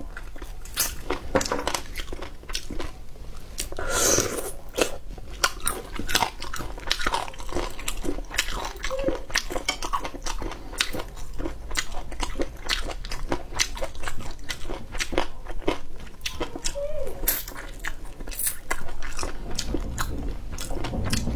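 A person biting, gnawing and chewing braised chicken feet close to the microphone, with many sharp crunches and wet clicks.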